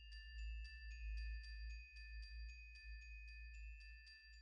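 Quiet background music: a light, tinkling glockenspiel-like tune over a quick, even ticking beat of about four ticks a second.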